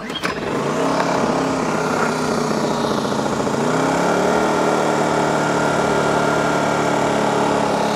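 Polaris P2000i inverter generator's small four-stroke engine catching on the pull-start, cold and choked, then running; its speed wavers at first and rises to a steadier pitch about four seconds in.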